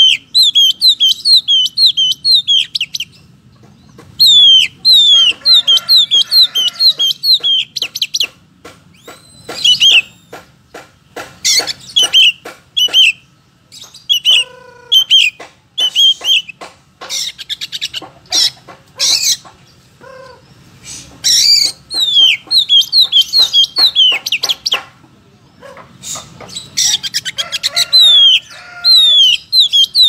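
Oriental magpie-robin (kacer) male in full song: rapid runs of sharp, downward-slurred whistles mixed with hard clicking notes, delivered in repeated phrases with short pauses between them.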